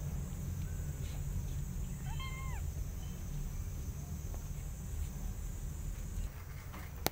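A young kitten gives one short meow that rises and falls, about two seconds in, over a steady low rumble.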